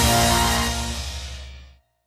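Intro music fading out, falling to silence near the end.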